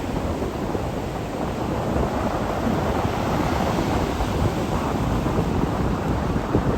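Strong gale buffeting the microphone, a dense low rumble of wind noise, with surf from the sea underneath.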